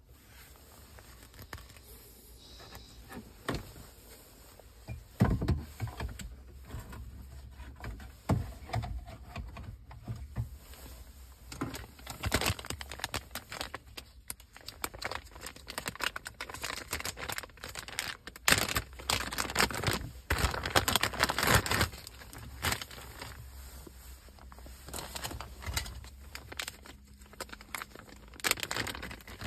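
Crinkling and rustling of plastic packaging and film being handled and opened, with scattered clicks and knocks from handling parts.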